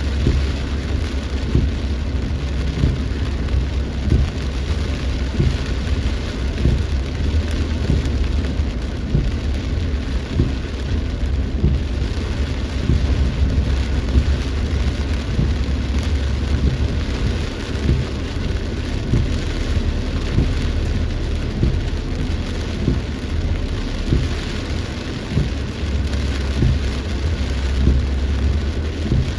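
Heavy rain falling in a storm, a steady hiss of many drops over a continuous low rumble.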